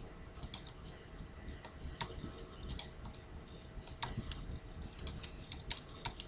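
Faint, irregular clicks of a computer keyboard's arrow keys being tapped, with mouse clicks among them, as letters are selected and nudged one step at a time.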